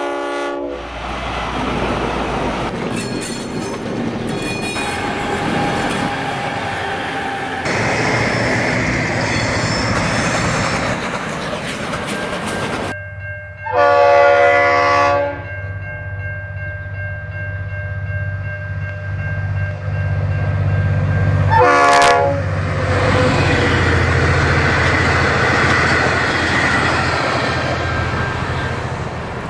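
Diesel trains running past with their horns sounding: a short blast at the start, a loud blast of about a second and a half around the middle, and a short blast about eight seconds later. The steady rumble of the engine and wheel noise on the rails lies under them.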